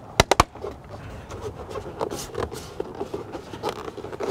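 Hands pressing and handling a plastic side-mirror cap and cover on a Subaru side mirror: a quick run of three sharp plastic clicks just after the start, then light scraping and small taps.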